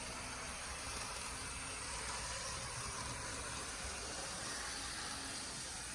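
Atlas N scale SD35 model diesel locomotive running steadily on the track: an even hiss of its small motor and wheels on the rails, running smoothly without trouble.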